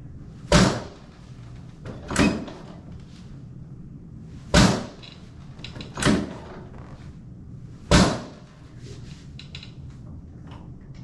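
Chiropractic drop table: the raised pelvic section dropping onto its stop five times, each a sharp thump a second or two apart, during a drop-table adjustment of the right sacroiliac joint.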